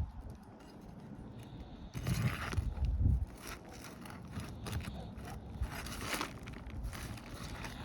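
Asphalt roof shingles being worked and lifted, giving irregular scraping and crackling. A louder low rumble of handling comes about two seconds in.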